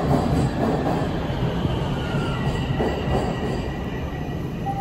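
Toronto Rocket subway train pulling into the station alongside the platform: a loud, steady rumble of wheels on rail as it slows. A faint high whine comes in about two seconds in.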